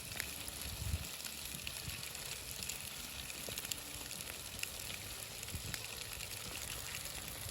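Char fish with butter sizzling steadily under a foil lid on campfire coals, with faint scattered crackles; the butter is still melting.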